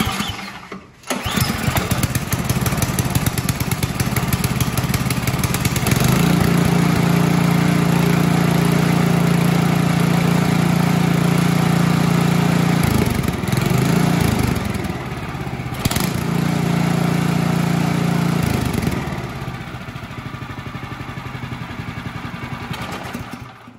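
Ariens Deluxe 24 snowblower's 12.5 hp LCT single-cylinder engine starting on choke about a second in, on its newly installed carburetor, and running fairly well: the new carburetor works. It picks up to a steady speed, dips briefly around the middle and steadies again, then runs slower and quieter in the last few seconds before it stops just before the end.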